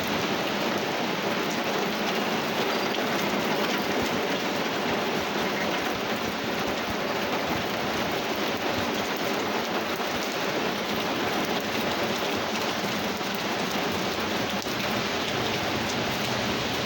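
Steady, heavy rain falling hard on surfaces in a storm, an even hiss without let-up.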